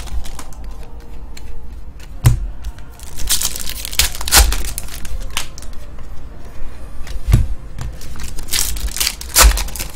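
Foil trading-card pack wrappers crinkling and tearing as they are pulled open by hand, with a few dull knocks.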